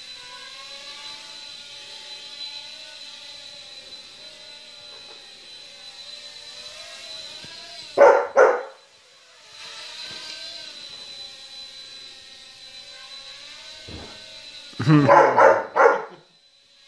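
Blade Nano QX micro quadcopter's motors whining steadily, the pitch wavering as it hovers and moves. A Bernese mountain dog barks twice about eight seconds in and gives a quick run of four or five barks near the end.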